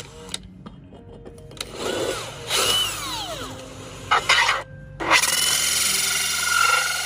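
Electronic bass-test music: steady low bass notes under sweeping, gliding synth effects and noisy swells. A short drop about four and a half seconds in leads to a loud, harsh, buzzing synth texture.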